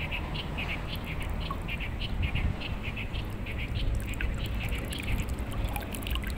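Rhythmic high chirping from a small creature, about three to four short chirps a second, keeping an even pace throughout, over a low rumble. A few sharp clicks come in the second half.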